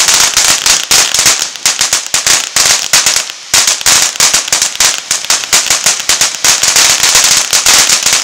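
Ground fountain firework spraying sparks with fast, dense crackling, dipping briefly about three and a half seconds in.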